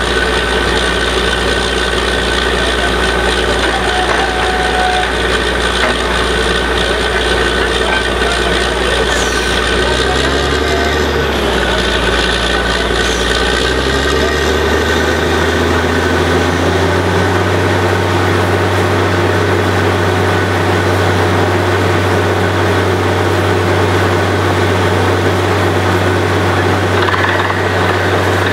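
Truck-mounted borewell drilling rig's engine running loudly and steadily. About halfway through, its deep note shifts: a tone rises and settles into a new, steady low hum.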